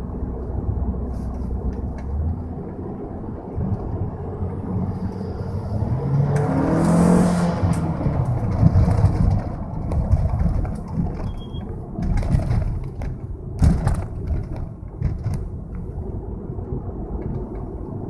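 2003 Volkswagen Jetta's turbocharged 1.8-litre four-cylinder engine running while driving, its pitch rising once as it speeds up about six to eight seconds in, with a few sharp thumps later on.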